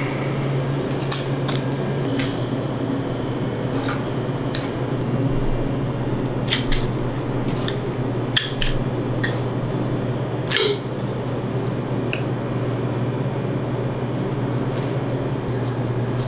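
Boning knife scraping and clicking against bone as meat is worked off a piece of beef, a scattering of short sharp clicks at uneven intervals, over a steady low hum.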